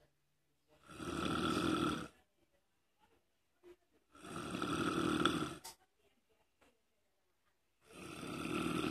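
Snoring: three long snores, each lasting over a second, about three and a half seconds apart.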